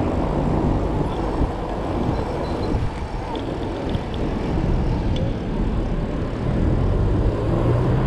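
Road traffic noise with a steady low rumble, heard while cycling along a city street. In the last couple of seconds a motor vehicle's engine rises in pitch and gets louder as it accelerates close by.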